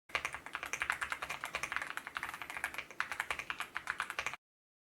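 Stock, unmodded Yunzii AL66 65% mechanical keyboard with Yunzii milk switches being typed on quickly: a rapid, uneven run of keystroke clacks that cuts off abruptly about four seconds in.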